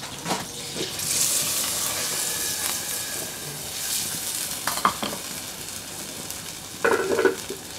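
Sofrito of onion and tomato fried in oil tipped from a clay bowl into a simmering stew in a clay pot, hissing and sizzling for a few seconds, then a wooden spoon stirring the pot with a few knocks of clay and wood, a louder clatter near the end.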